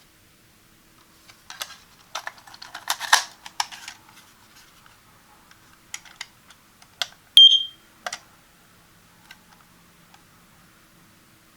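Crisp handling clicks and light rustling as the Kidde carbon monoxide detector is handled, then one short, loud, high-pitched electronic beep from the detector past the middle, followed by a couple more clicks.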